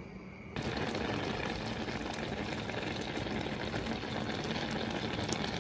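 A pot of rice and red kidney beans bubbling steadily as it boils in coconut milk; the bubbling starts suddenly about half a second in.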